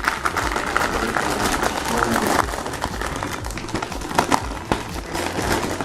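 Plastic packaging crinkling and rustling, with many small clicks and taps, as a boxed graphics card is unwrapped and handled.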